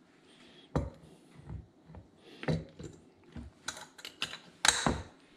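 A run of sharp clicks and knocks: a butter knife tapping and scraping against a glass clip-top jam jar, then the jar's glass lid and wire clasp being handled shut.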